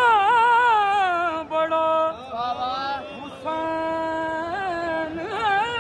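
A solo voice singing a qasida unaccompanied, in long held notes with wavering, ornamented turns of pitch. It breaks briefly about a second and a half in and again at about three seconds.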